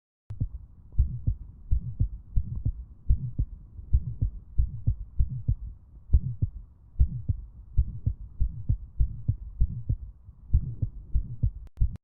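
Heart sounds heard through a stethoscope: a fast, regular rhythm of low thuds, starting and stopping abruptly.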